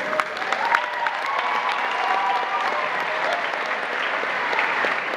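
Large audience clapping, dense and steady, with some cheering over the first few seconds.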